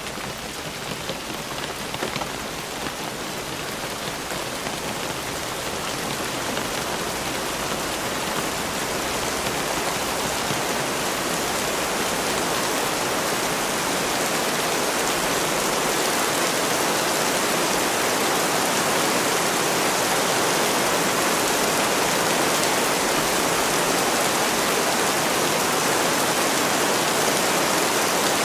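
Steady rain falling, with drops pattering at first, then growing gradually louder into a dense, even rush.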